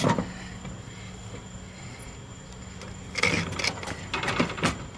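Plastic taillight lens and housing parts being handled and pushed together: a sharp click, then a cluster of short clicks and rattles about three seconds in, over a faint steady hum.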